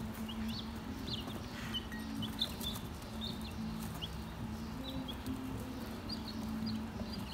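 A brood of young meat chicks peeping, many short high chirps scattered throughout, over a steady low hum.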